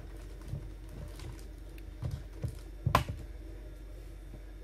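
Faint steady hum of a rotary emergency beacon's small motor turning its reflector, with a few irregular light knocks and clicks, the loudest a sharp click about three seconds in.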